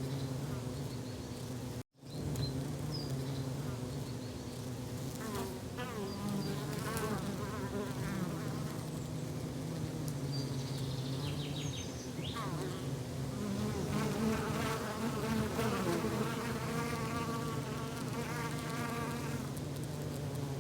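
Steady buzzing of flying insects in forest ambience, with higher chirping and warbling calls over it. The sound drops out for an instant about two seconds in.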